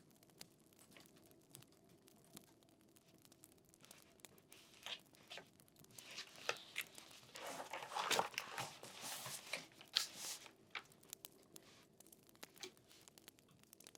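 Paper rustling and crinkling for several seconds in the middle, loudest near the end of that stretch, with faint scattered clicks around it.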